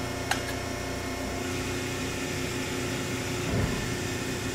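Cincinnati 400H CNC hydraulic press brake with its hydraulic pump running, a steady mechanical hum. A sharp click comes shortly after the start, and a brief low rumble about three and a half seconds in.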